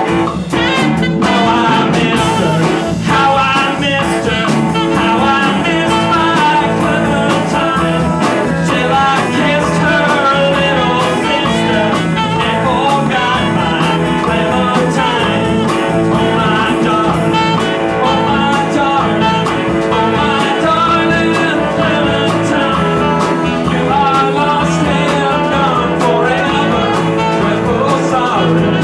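Live band playing: electric guitar lines over bass, drum kit and a hand drum, continuous and loud.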